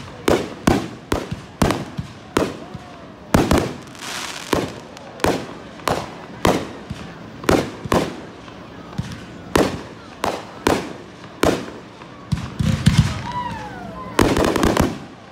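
Aerial fireworks display: shells bursting with sharp bangs about twice a second, one after another. Near the end comes a run of rapid crackling reports, then a dense, loud cluster of bursts.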